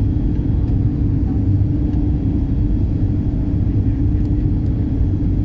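Steady low rumble of engine and airflow noise inside a jet airliner's cabin during the approach, with a constant hum running through it.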